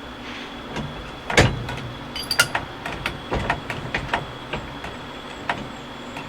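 Scattered metallic clicks and knocks of hands and a tool working on a truck's steering column hub, one sharper knock about a second and a half in and lighter ticks after it, over a steady background hum.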